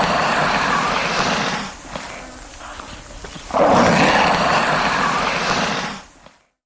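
Komodo dragon giving two long, rough, breathy hisses, each lasting about two and a half seconds, with a short pause between them.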